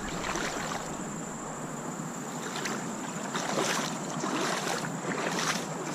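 Wading through a shallow creek, water splashing with each step; the splashes come several times in the second half.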